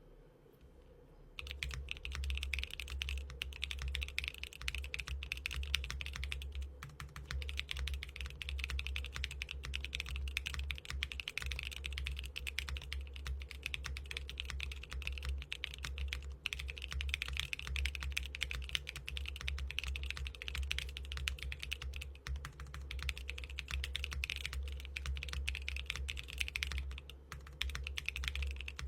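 Fast, continuous typing on a custom mechanical keyboard, with clacky key strikes in a dense run that starts about a second in.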